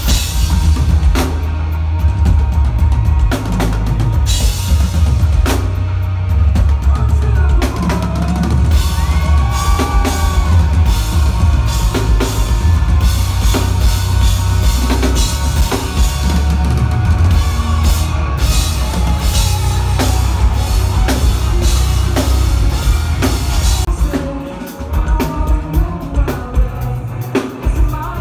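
Rock band playing live with loud drums, kick drum and a heavy bass rumble, recorded on a phone microphone in the venue. About 24 seconds in the heavy low end drops away, leaving separate loud drum hits.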